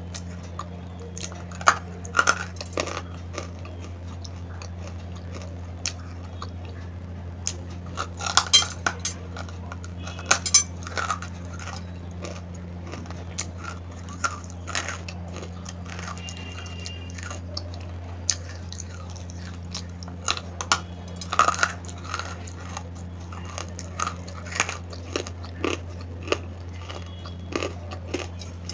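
Dry lumps of edible clay bitten and chewed, with scattered crisp crunches and cracks every second or so and a few quick clusters of them, over a steady low hum.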